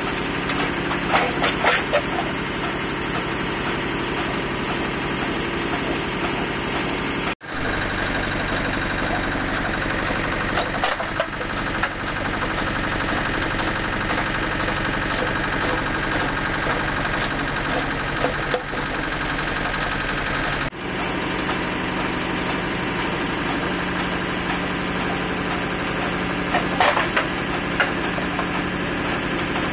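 Chaff cutter running steadily, its flywheel and cutting blades turning, with bursts of crackling and crunching as the toothed feed rollers grip and chew a plastic water bottle and a rubber slipper. The sound cuts out abruptly twice.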